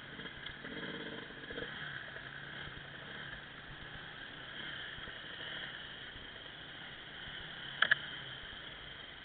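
Off-road motorcycle engines running steadily at low speed, with a low hum that fades out about eight seconds in. Two sharp knocks come just before the hum fades.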